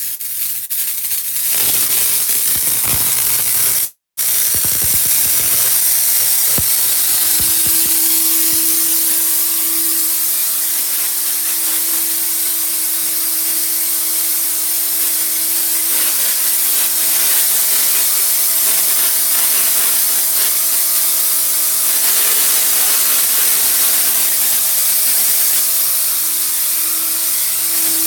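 Tesla coil running: a loud, steady hiss with a low humming tone underneath that settles in about six seconds in.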